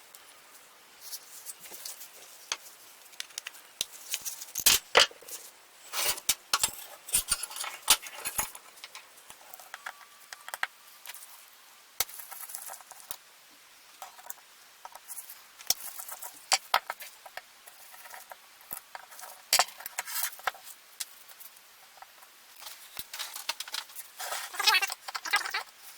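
Metal parts of a Stanley Bailey No.4 hand plane being handled on a bench: irregular clicks, clinks and taps, with a denser run of them near the end.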